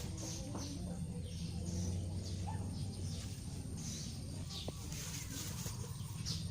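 Repeated short, high-pitched falling chirps from an animal, about one or two a second, over a steady low hum.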